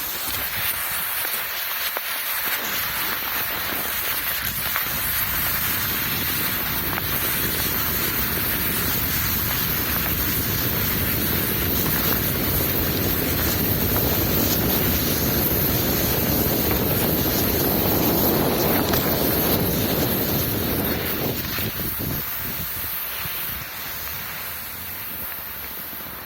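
Wind buffeting the microphone of a skier going fast downhill, whistling at speed. It builds gradually to its loudest about two-thirds of the way through, then dies down near the end as the skier slows.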